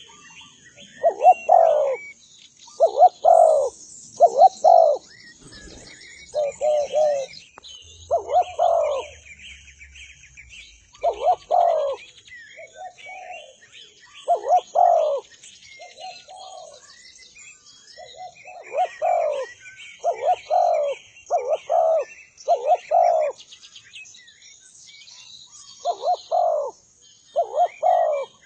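A derkuku (spotted dove) cooing in repeated phrases of two to four soft, low notes every couple of seconds, over fainter chirping of small birds.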